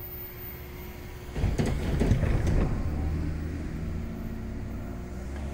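Vehicle noise: a low engine drone that swells into louder rumbling about a second and a half in.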